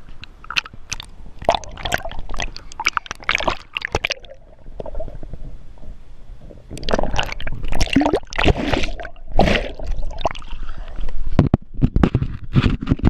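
Water splashing and sloshing close to the microphone in irregular bursts, heaviest in the second half.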